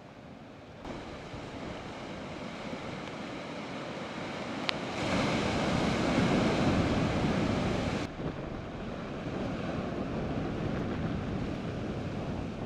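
Ocean surf breaking and washing against rocks, with wind buffeting the microphone. The surf is loudest for about three seconds in the middle.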